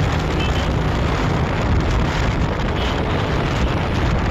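Wind buffeting the microphone on a moving motorcycle: a steady, deep rushing noise, with the bike's engine and road noise mixed in beneath it.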